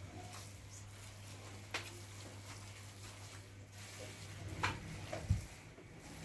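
Spatula stirring thick, cooked carrot halwa in a pan, with a few soft knocks and scrapes against the pan about two, four and a half and five seconds in, over a steady low hum.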